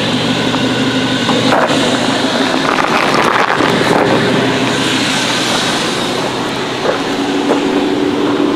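Mazda 6's 2.0-litre four-cylinder petrol engine idling steadily, heard from beneath the car, with its hum lying under a loud rushing noise.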